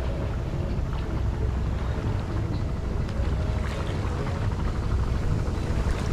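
Strong wind buffeting the microphone in a steady low rumble.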